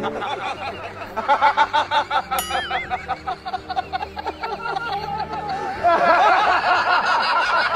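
Added laugh track: people chuckling and giggling in quick bursts, swelling louder about six seconds in. A short falling whistle-like sound effect cuts in about two and a half seconds in.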